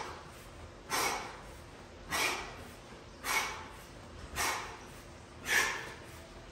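A man's short, forceful exhalations, one with each rep of straight-leg toe-touch crunches. Five in a steady rhythm, about one a second.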